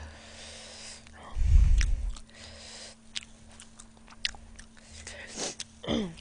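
Close-miked eating sounds: chewing with sharp wet mouth clicks, soft rustling near the start, and a dull low thump about a second and a half in.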